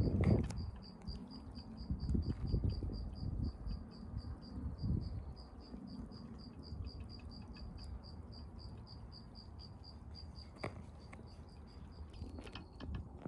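A cricket chirping steadily in short, high pulses, about four a second. Low rumbling thumps in the first few seconds and a few faint clicks near the end.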